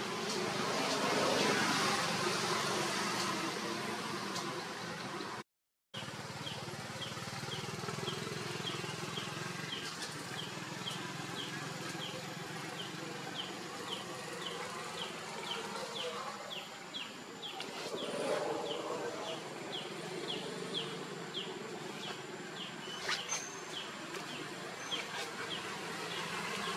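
Outdoor background hiss with an insect's high, short chirp repeating about twice a second, starting after a brief dropout about six seconds in.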